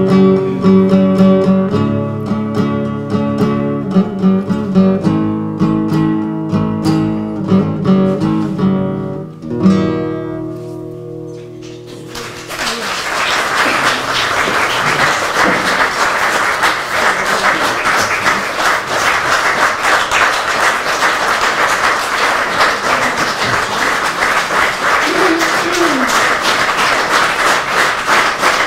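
A guitar piece being played, ending on a final chord about nine seconds in that rings out; then an audience applauds steadily.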